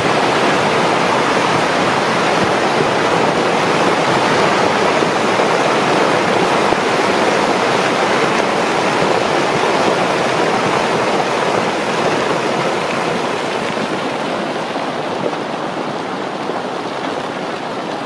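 Avalanche sweeping down a snowy mountainside: a loud, continuous rushing noise that slowly fades over the last several seconds.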